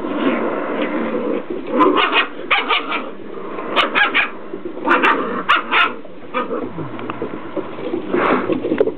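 Six-week-old Portuguese Water Dog puppies yapping in short clusters of two or three barks while they play, with a few seconds between clusters.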